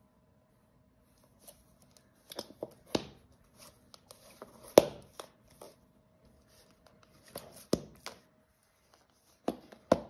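Smartphones being handled, flipped over and set down on a wooden tabletop: a series of clicks and knocks with rubbing between them, the loudest a sharp knock about halfway through.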